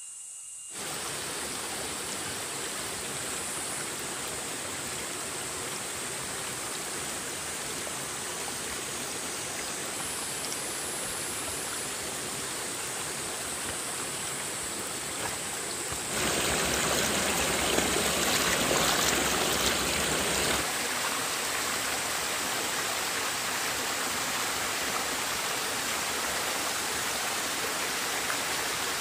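Steady rush of running water, louder for a few seconds in the second half, with a steady high-pitched hiss above it.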